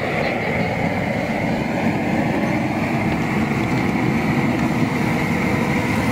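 Outdoor gas burner under a crawfish boil pot running with a steady, loud rushing noise.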